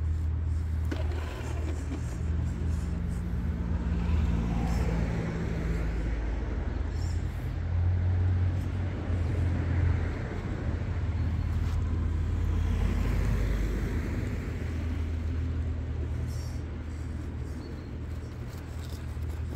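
Electric motor and geared drivetrain of an Absima Sherpa RC scale crawler running and whining as it crawls over rocks. The sound swells and eases several times as the throttle changes.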